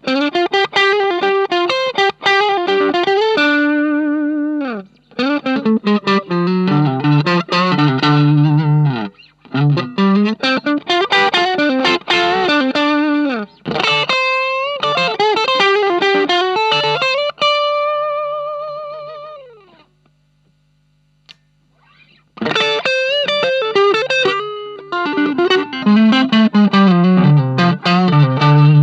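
Fender Stratocaster electric guitar played through an Ibanez Tube Screamer Mini overdrive pedal into a Marshall MG15 amp, giving a distorted tone. It plays riffs and single-note lines in several phrases with short breaks. Past the middle a held note rings out and fades, then after about two seconds of silence the playing starts again.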